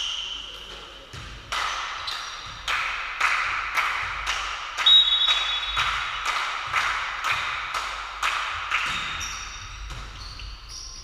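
Volleyballs being struck and bouncing on a sports-hall floor, sharp echoing smacks about two a second, with a few short high squeaks.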